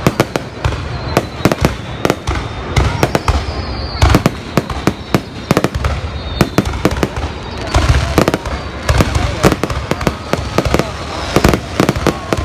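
Fireworks display going off: a dense, irregular run of sharp bangs, several a second, with a low rumble between them.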